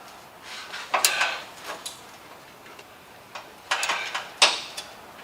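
Irregular sharp metallic clicks and knocks from a sheet-metal replacement quarter panel and clamps being fitted and adjusted by hand, a handful of single taps with a quick cluster past the middle.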